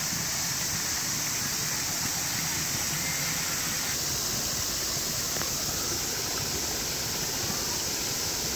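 Water running steadily over a low weir and stream cascade, an even rushing hiss with no breaks.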